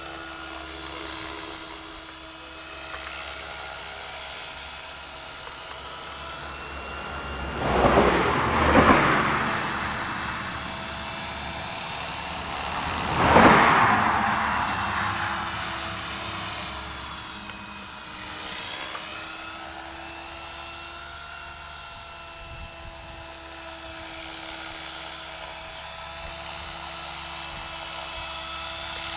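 Align T-Rex 500 electric RC helicopter with a Scorpion brushless motor in flight: a steady whine of motor and rotor blades made of several tones. The pitch shifts slightly a little past halfway. Two loud whooshing swells come about eight and thirteen seconds in.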